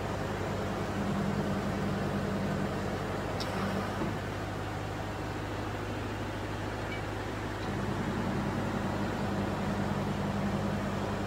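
Hydraulic press power unit (electric motor and pump) running with a steady hum. The upper part of the hum fades after a faint click about four seconds in and comes back at about eight seconds.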